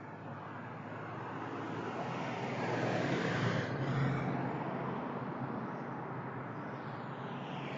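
Road traffic passing close by: a van and a small SUV drive past, their tyre and engine noise swelling to a peak about halfway through and then fading.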